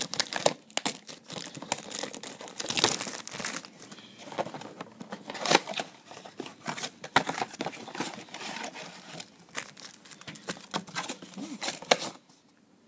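Plastic wrap on a cardboard trading-card box crinkling and tearing as it is stripped off, then the box being opened and the foil card packs handled and pulled out. It is a run of irregular crackles and rustles that stops near the end.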